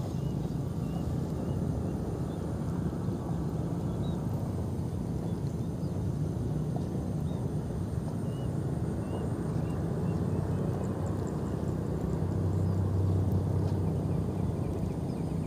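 A steady low engine drone, unbroken throughout and swelling a little near the end.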